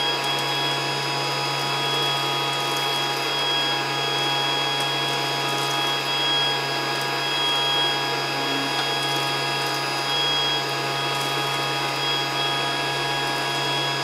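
The small battery-powered suction motor of a Casdon toy Dyson DC14 vacuum cleaner running with a steady whine, as its crevice nozzle sucks up small paper dots through the hose.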